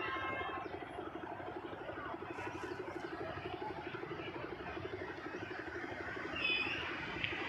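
A motor vehicle engine running steadily with an even low pulse, and a short vehicle horn beep about six and a half seconds in.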